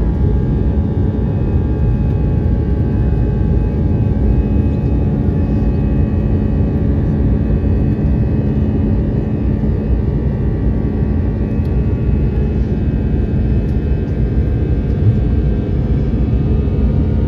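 Jet airliner cabin noise heard from a window seat beside the turbofan engine during the climb after takeoff: a steady, loud rumble with several steady whining tones on top.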